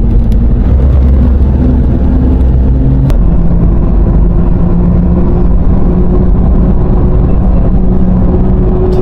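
Car driving along a road: a loud, steady engine and road rumble. The engine note rises, drops suddenly about three seconds in, then rises slowly again.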